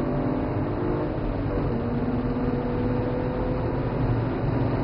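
BMW 135i's twin-turbo straight-six heard from inside the cabin, accelerating hard down a straight. The engine note drops at a gear change about a second and a half in, then climbs again.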